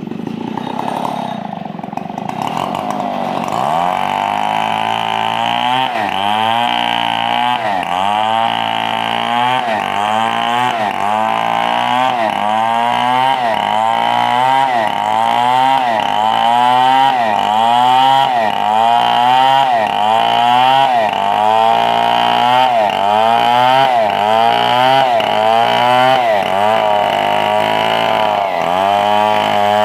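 Power saw cutting through a 4-metre log, running steadily under load, its pitch dipping and recovering in a regular cycle about once a second. It starts abruptly and gets louder over the first few seconds.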